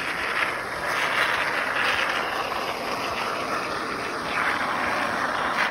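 Aerosol can of GE minimal-expanding window and door foam spraying through its straw nozzle to fill the gap around a door jamb: a loud hiss that swells and eases several times, then stops abruptly near the end.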